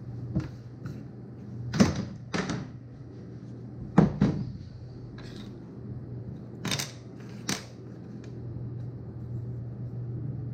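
Scattered hand clicks and knocks, about eight in ten seconds and loudest about four seconds in, as soldered wire connectors are fitted into an Engel car fridge. A steady low hum runs underneath.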